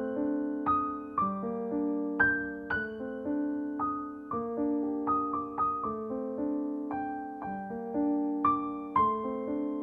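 Background piano music: single notes struck one after another and left to ring, over held lower notes.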